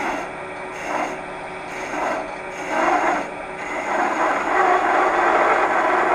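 Detail gouge scraping against spinning pine on a wood lathe, in short passes about once a second, then a continuous cut from about four seconds in. The gouge is dull and chattering, giving more sawdust than clean cut.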